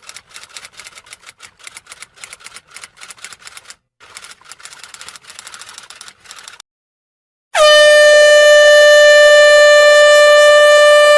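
Typewriter keys clacking rapidly for about six and a half seconds, then, after a second of silence, one loud, steady air-horn blast lasting almost four seconds.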